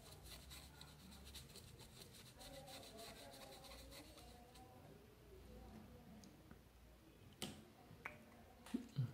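Faint, rapid scratching of a bristle brush scrubbing across a phone circuit board's LCD solder pads, stopping about four seconds in. A few light clicks and a soft knock follow near the end as the board is handled.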